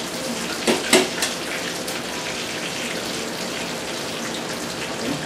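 An egg being cracked over a stainless steel mixing bowl: a few sharp taps close together about a second in, with a steady hiss behind.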